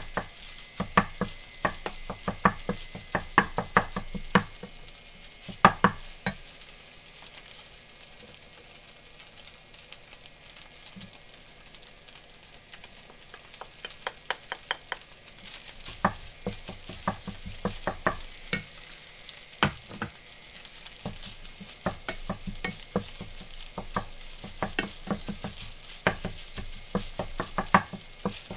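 Wooden spatula knocking and scraping against a metal frying pan while stir-frying egg and rice, over a steady sizzle. The knocks are dense at first, die down for several seconds, then start again about halfway through as rice is tipped in and stirred.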